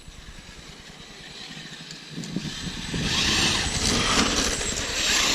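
Electric Traxxas X-Maxx RC monster truck driving across a lawn, its motor and tyres making a rushing hiss that builds up about two seconds in and stays loud to the end.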